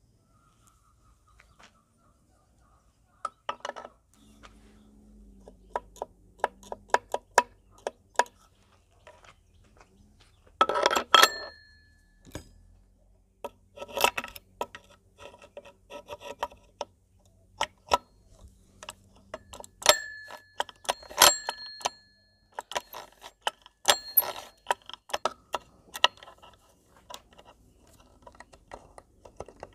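Steel kickstart gears, shaft and return spring of a Honda Tact AB07 engine clinking and clicking against each other and the aluminium crankcase as they are fitted by hand. A few sharper metal knocks ring briefly, one about a third of the way in and several in the second half.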